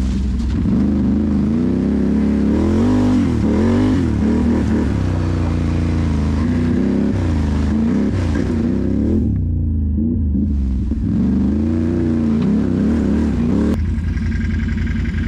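Can-Am Renegade ATV engine running along a trail, its pitch rising and falling as the throttle is worked. About a second and a half before the end it settles to a steady, lower note.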